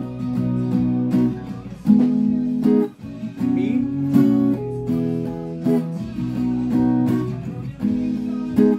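Acoustic guitar with a capo on the second fret strumming a chord accompaniment pattern, the chord changing every second or two.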